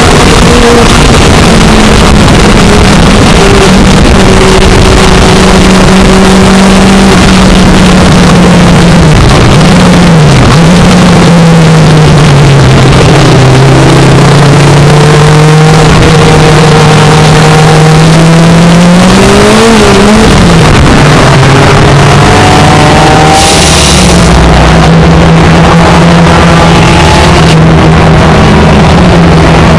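Race car engine heard from inside the stripped, roll-caged cabin while it is driven hard on track, very loud, with a constant noise of wind and tyres beneath it. The engine note holds fairly steady, then dips and climbs again about ten seconds in and rises sharply then drops about twenty seconds in, as the car changes speed.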